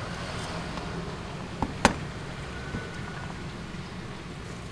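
A cleaver cutting green beans on a wooden cutting board: two sharp knocks close together about two seconds in, over a steady hiss.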